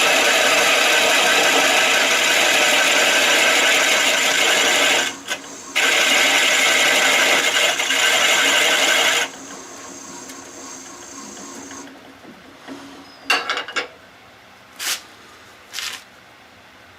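Half-inch bowl gouge cutting into a maple burl spinning on a Shopsmith lathe: a loud continuous scraping cut with a brief break about five seconds in. The cut stops about nine seconds in, leaving a much quieter machine hum, then a few short knocks near the end.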